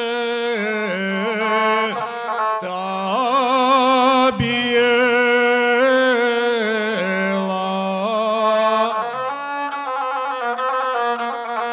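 Gusle, the single-string bowed folk fiddle, accompanying a man's voice that holds long, wavering sung phrases at the end of an epic verse. About nine seconds in the voice stops and the gusle plays on alone in quicker figures.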